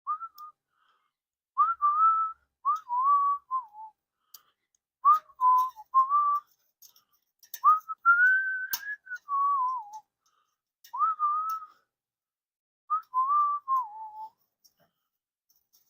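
A person whistling a tune in short phrases, with a few light clicks and taps, one sharper click about nine seconds in.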